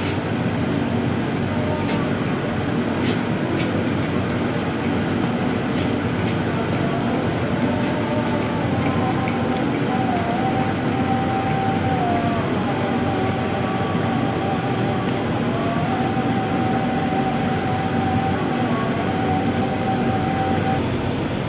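Steady running hum of a passenger train standing at a station platform, with a thin whine that wavers in pitch and a few faint knocks.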